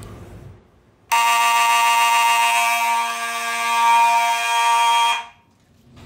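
Fire alarm horns sounding steadily for about four seconds, then cutting off: the panel's audible walk test confirming the pull station has been activated.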